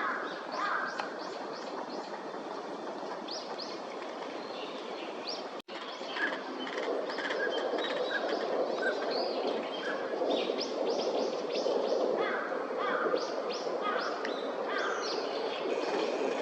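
Northern pintails calling in many short, high whistles and chirps over a steady background rumble, which grows louder after a brief dropout about five and a half seconds in.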